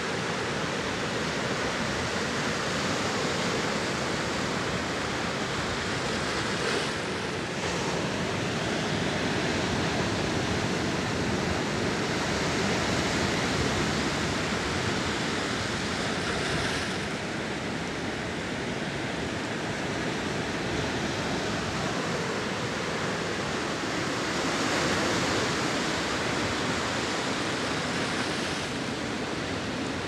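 Large ocean waves breaking on the shore: a continuous rush of surf that swells a little louder around the middle and again near the end.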